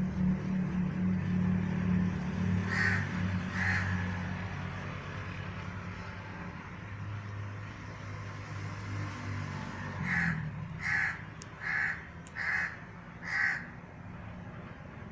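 Crows cawing: two caws about three seconds in, then a run of five evenly spaced caws near the end. A low steady hum runs underneath until about ten seconds in.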